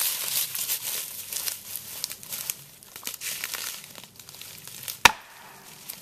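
Footsteps crunching through dry leaf litter, then about five seconds in a single sharp strike of a heavy striking tool on a plastic felling wedge set in the back cut of a standing pine, driving it to tip the tree.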